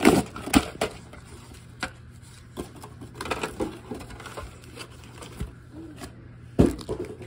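Small plastic toy pieces and packaging being handled: scattered light clicks and knocks, with a louder knock about six and a half seconds in, over a steady low hum.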